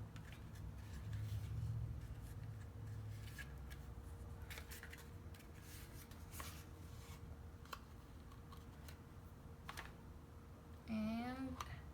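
Cardstock paper petals rustling and crinkling, with scattered small clicks and taps as they are handled and pressed together. A short voiced hum near the end.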